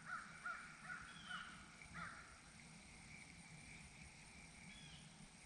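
A bird calling repeatedly in short calls, about two a second, that stop about two seconds in, leaving faint outdoor background.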